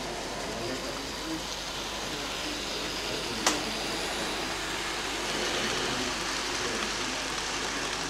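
Steady hum and murmur of a busy exhibition hall with distant chatter, and the faint running of small-scale model trains on the layout. A single sharp click about three and a half seconds in.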